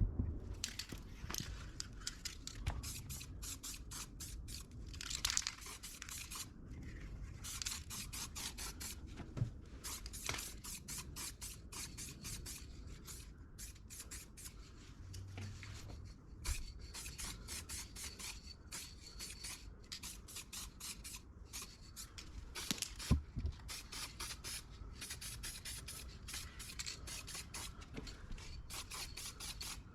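Aerosol can of black spray paint hissing in many short bursts, each stopping and starting again every second or so.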